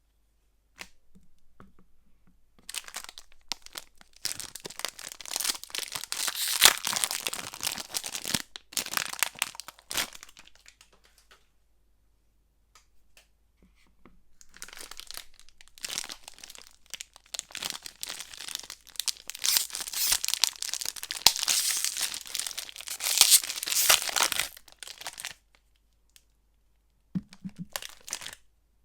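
Soap wrappers being torn open and crinkled by hand, in two long bouts of dense tearing and crackling separated by short pauses.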